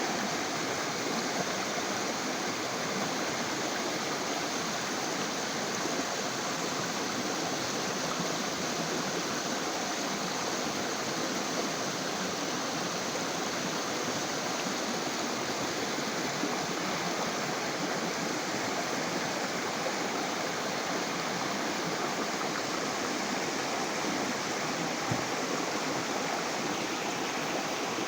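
Water rushing steadily, as of a stream or small waterfall.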